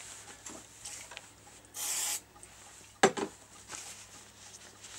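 Kitchen roll rubbing and wiping on the metal deck of a BSR record-changer, cleaning off thick, toffee-like old grease with isopropyl alcohol. There is a short hissing swipe about two seconds in and a sharp click just after three seconds.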